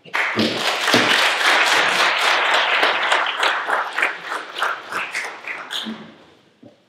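Audience applauding: dense clapping that starts at once and dies away over about six seconds.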